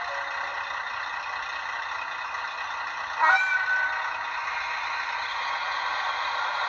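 Sound decoder in an HO-scale KiHa 40 diesel railcar model playing a steady idling engine sound through the model's small speaker. A sudden louder burst with a brief rising squeal comes about three seconds in.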